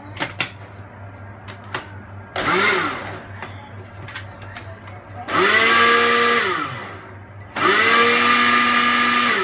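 Moulinex blender run in three pulses, a short burst and then two longer runs, chopping watermelon chunks and ice cubes; each time the motor whine rises as it spins up, holds steady, and falls away as it stops. A few sharp clicks come first as the lid is pressed onto the jug.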